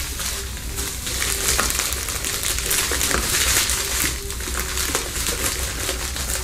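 A subscription box's packaging being opened by hand: cardboard and paper torn, handled and crinkled in a continuous crackling rustle.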